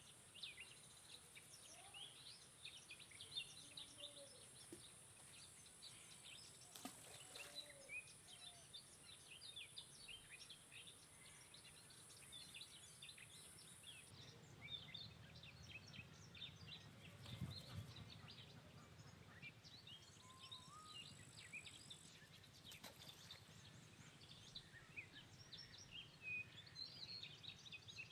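Faint outdoor ambience of many small birds chirping, over a steady high-pitched hum that drops away about halfway through.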